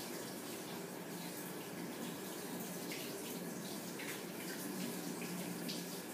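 Steady rushing background noise with a low hum, and a few faint light ticks.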